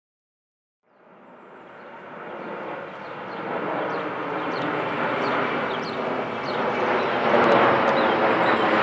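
Boeing C-17A Globemaster III's four turbofan jet engines rushing as the aircraft approaches, fading in about a second in and growing steadily louder.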